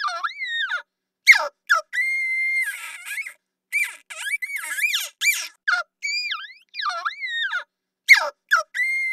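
Monster sound effect: a string of high-pitched squeaks and squeals that glide up and down, broken by short gaps, with a held whistle-like note. The same sequence repeats about every seven seconds, like a loop.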